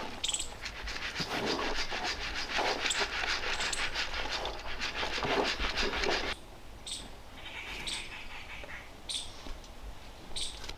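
A utensil scraping rapidly and rhythmically in a cooking pan for about six seconds, then stopping suddenly; a few short, high bird chirps follow.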